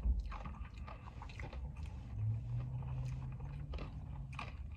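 A person chewing a mouthful of food close to the microphone, with many small clicks of mouth and food. A low steady hum comes in for about two seconds in the middle.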